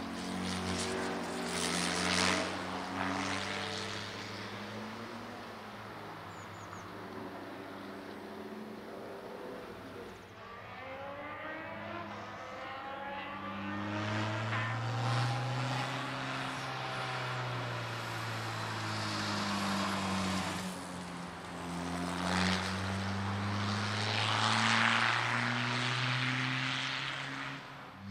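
VW Golf II race car's engine running hard through the gears, its pitch climbing and then dropping at each change, again and again.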